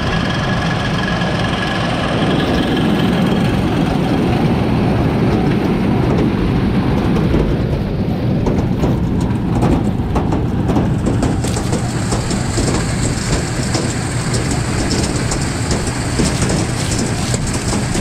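A tractor pulling a corn picker through standing corn, its engine running steadily under load, with mechanical clatter. A stretch of rattling clicks comes in the middle.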